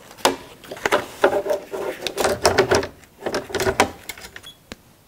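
Bernina embroidery hoop with fabric and stabilizer being handled and fitted onto the embroidery module of a Bernina B 790: rustling and a series of plastic knocks and clicks, ending in one sharp click about four and a half seconds in as the hoop is attached.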